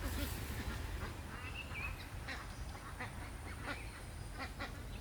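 Domestic ducks quacking, many short scattered calls, over a steady low rumble.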